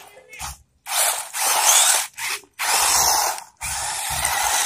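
Toy remote-control 4x4 car's small electric motor and gearbox whirring in about five short bursts of throttle, with brief silent gaps between them.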